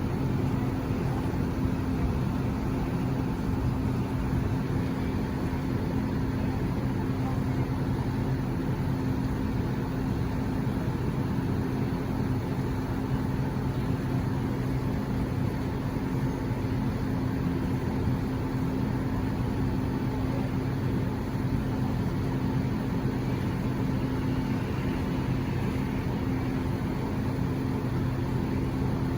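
Fujitsu Halcyon inverter mini-split air conditioner running steadily: a constant low hum with a pair of steady tones over an even rush of air.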